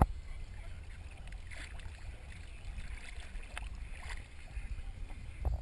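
Muffled low rumble of a boat on the water, heard through a waterproof action-camera housing. There is a sharp thump right at the start and a few light knocks from the camera being moved around the hull.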